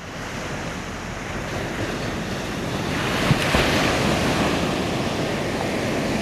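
Sea surf washing on the shore, with wind on the microphone; the rush swells a little past the middle as a wave breaks. A brief knock comes a little over three seconds in.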